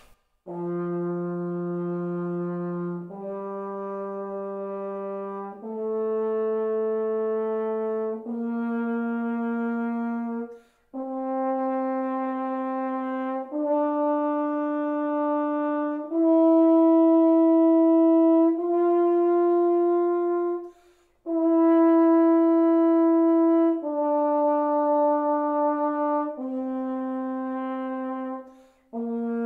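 Double French horn playing a slow C major scale as a warm-up, each note held for four beats (about two and a half seconds), climbing step by step to the top note and then coming back down, with short breaks for breath.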